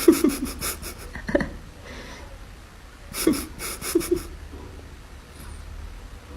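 An animal breathing in quick, rhythmic bursts, twice, with a few short low grunts in between.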